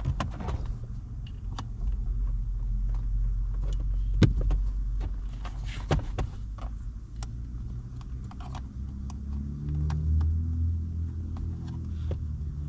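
Scattered sharp metallic clicks and clinks of hand tools and parts being worked on a car's steering column, with one louder knock about four seconds in, over a steady low hum.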